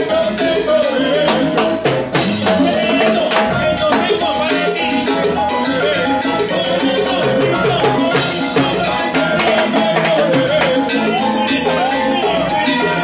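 Live salsa band playing, driven by timbales with their cymbal and by bass, with a sliding lead melody line over the top. Cymbal crashes come about two seconds in and again about eight seconds in.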